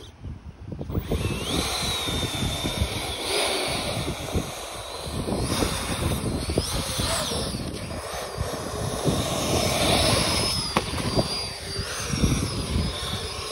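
Two 50 mm electric ducted fans on a small RC hovercraft spinning up about a second in, then running with a high whine that rises and falls as the throttle changes.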